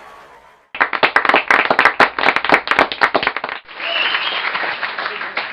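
Applause: after a short gap, a group of hands starts clapping about a second in, the separate claps easy to pick out, then merges into a denser, steadier wash of applause for the last couple of seconds.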